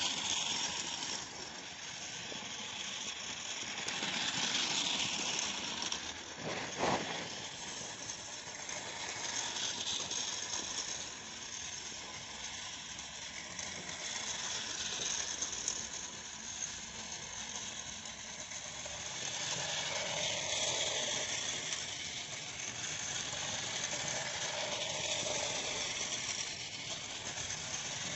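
A battery-powered toy train running on plastic track: the small motor and gears whirring and the wheels clattering, rising and falling in loudness as it circles. A single knock about seven seconds in.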